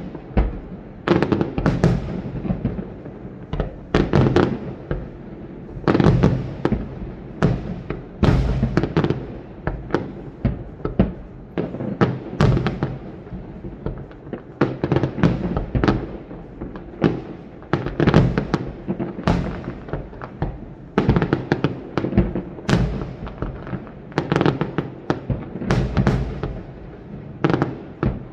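Fireworks display with aerial shells bursting in rapid succession: a near-continuous string of loud bangs, several a second, with no let-up.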